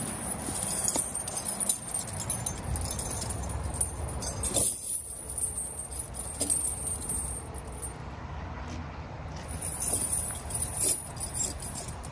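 Steel tire chains clinking and jangling as they are lifted off the ground and draped over a semi truck's dual drive tires. The clinks come in irregular clusters with each handling of the chain.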